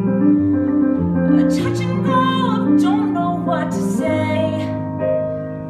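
Piano playing sustained chords accompanying a voice singing a musical-theatre number, the sung phrases wavering in pitch.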